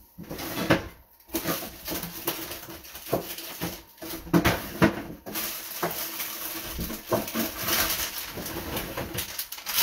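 Irregular knocks, clicks and rustling of kitchen items being handled, with a short lull about a second in and a few sharper knocks in the middle.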